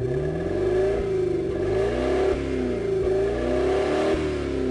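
Car engine revving, used as an intro sound effect: the engine note repeatedly swings up and down in overlapping swoops.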